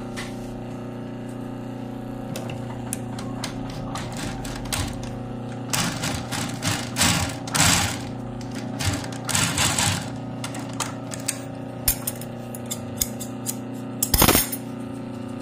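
Industrial post-bed sewing machine stitching a shoe upper: short runs of rapid needle clicks from about six to ten seconds in, scattered single ticks, and a steady hum underneath. A sharp noisy burst comes near the end.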